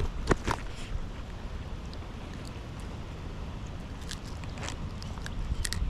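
Steady low rumble of wind buffeting the microphone, with a few short sharp sounds about half a second in and again just before the end.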